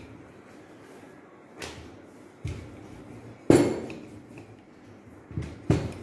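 Wooden rolling pin rolling out dough on a tabletop, knocking against the table about five times, loudest about halfway through, over a soft rolling rumble.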